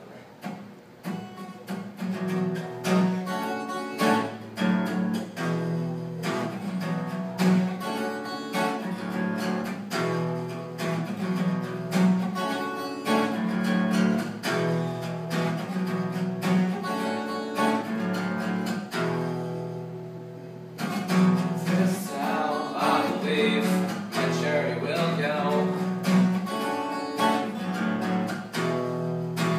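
Acoustic guitar played live in a steady, repeating chord pattern, with a short break about twenty seconds in. A man's voice seems to start singing over the guitar soon after the break.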